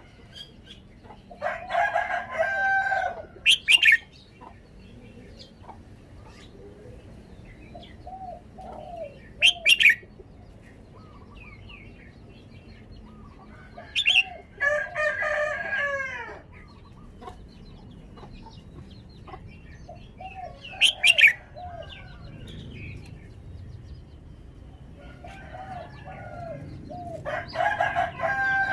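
Red-whiskered bulbul singing short, warbled song phrases with sharp high notes, in bouts every few seconds.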